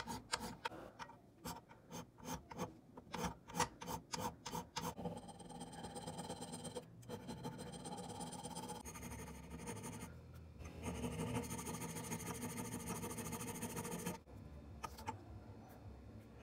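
Hand filing: quick strokes about three a second for the first five seconds, then a steadier continuous rubbing with two short breaks, quieter near the end.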